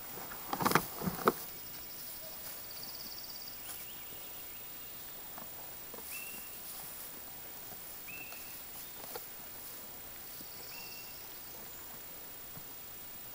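A burst of loud knocks and clatter from a plastic tub being butted and tipped over by goats, about a second in. After that comes a quiet outdoor background with short high chirps repeating every couple of seconds.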